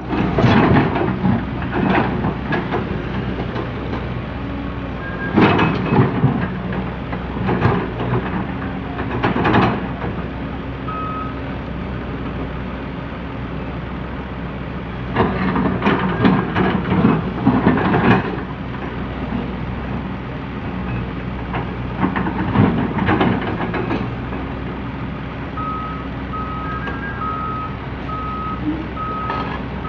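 Komatsu PC200CE hydraulic excavator's diesel engine running steadily while digging soil, with louder surges every few seconds as it works. A single beep comes about a third of the way in, and a beeping alarm repeats steadily through the last few seconds.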